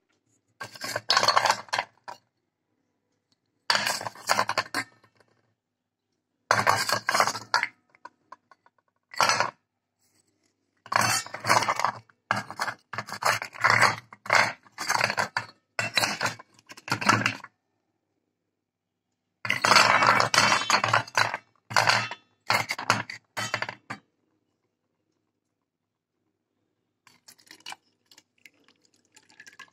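Fired clay diyas clattering and clinking against each other and a stainless steel bowl as they are moved by hand, in bursts of a few seconds separated by silent pauses. Near the end, water pours faintly into the bowl over the diyas.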